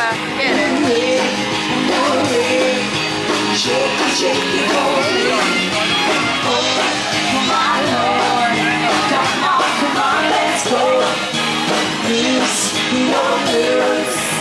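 Live rock band playing a song: singing over electric guitar and drums, heard from within the crowd.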